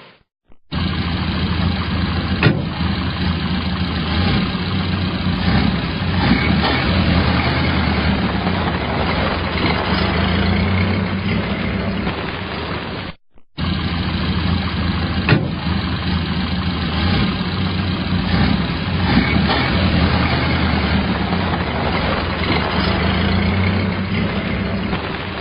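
Car engine start sound effect: the engine cuts in abruptly and runs at a steady, low idle, with a sharp click shortly after it comes in. The same take plays twice, separated by a brief silence about halfway.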